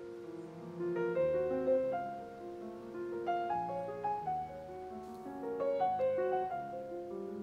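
Background music: a slow, gentle piano melody with overlapping held notes.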